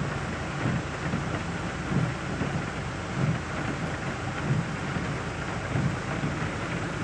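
Waterfall rushing: a steady roar of falling water with low rumbling swells about once a second.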